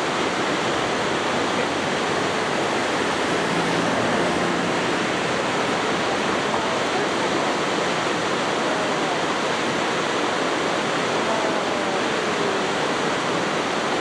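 Steady rushing of a waterfall cascading down rock into a plunge pool.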